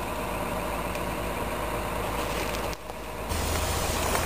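Mobile crane's diesel engine running steadily. The sound drops briefly just under three seconds in, then comes back with a louder low hum.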